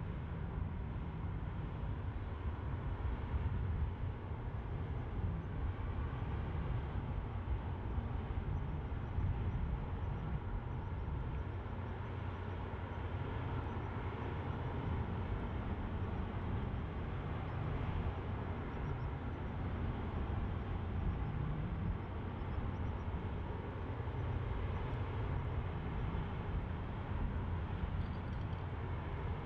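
Steady low rumble of harbour background noise while a large tanker moves slowly past.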